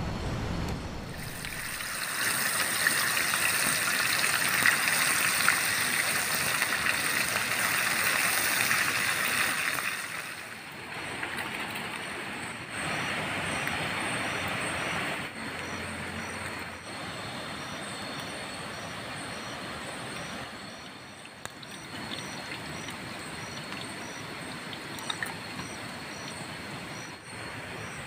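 Steady hiss of rainforest night ambience, loudest for the first third and shifting in level a few times. From about a third of the way in, an insect chirps behind it in an even, repeating pulse.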